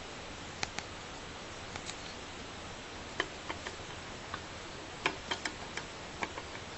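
Light, sharp clicks at uneven intervals, a dozen or so, over a steady hiss.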